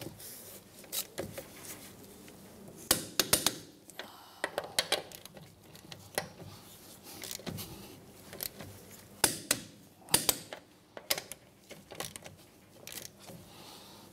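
A torque wrench and socket tightening lug nuts to 98 foot-pounds: small clusters of sharp metal clicks every second or two as the wrench is set on each nut and pulled to torque.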